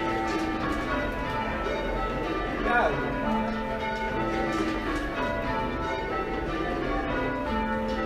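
Change ringing on a ring of six church bells: five 1804 Thomas Mears bells and a tenor of about 8½ cwt in A flat, recast in 1935 by Mears and Stainbank, striking one after another in steady rotation. A short sliding sound cuts across the bells about three seconds in.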